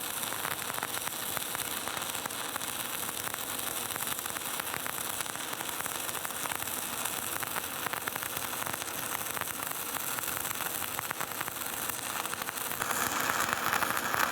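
Stick (shielded metal arc) welding arc burning with a 3.2 mm electrode at about 125 A: a steady crackling sizzle as the bead is run, growing a little louder near the end.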